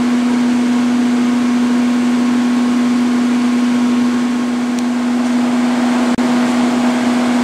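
Steady shop background hum: one constant low electrical tone over an even hiss of air-handling noise, cutting out briefly about six seconds in.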